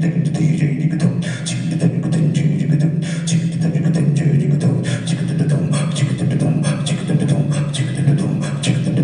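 Tabla and djembe played in a fast, dense rhythm of sharp strokes over a steady low tone.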